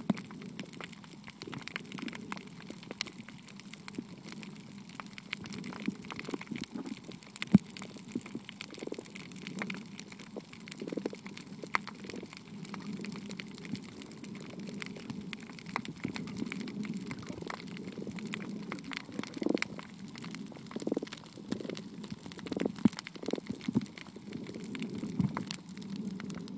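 Muffled underwater ambience picked up by a submerged camera: a low rumble of moving water with scattered clicks and crackles throughout and a few sharper knocks.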